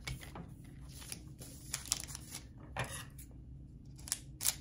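Plastic chocolate-bar wrapper crinkling and tearing as it is opened: irregular sharp crackles, with a few louder ones near the end.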